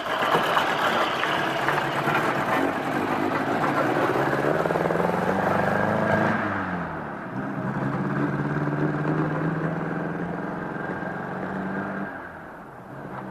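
A motor vehicle's engine running under way, its pitch rising for the first six seconds or so, dropping sharply about six to seven seconds in, then holding steady and fading a little near the end.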